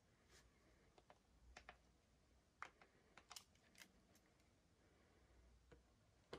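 Near silence with about a dozen faint, irregular clicks and ticks, the loudest about two and a half seconds in.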